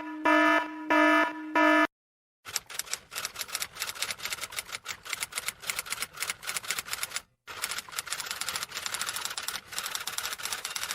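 An electronic alarm beeping four times in quick succession, then rapid clicking like fast typing on keys, in two long runs with a brief pause between them.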